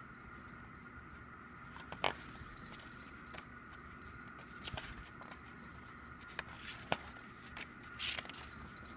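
Pages of a CD album's photobook being turned by hand: soft paper rustling with a few sharp page flicks, one about two seconds in and one near seven seconds, then a longer rustle of a page turning near the end.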